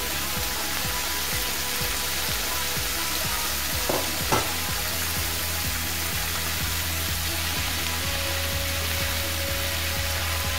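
Sliced cabbage and zucchini sizzling as they fry in a hot pan while being stirred with a wooden spatula. Two sharp knocks come about four seconds in.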